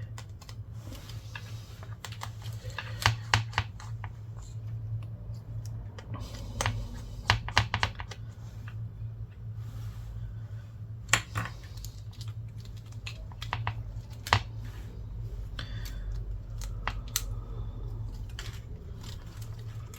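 Small hand tools tapping and clicking against the iPad's parts as a flex cable is worked free: light, irregular clicks with a few small clusters, over a steady low hum.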